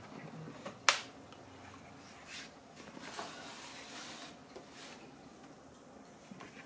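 Plastic laptop case being handled and turned over on a work surface: one sharp click about a second in, then a few faint scrapes and rustles.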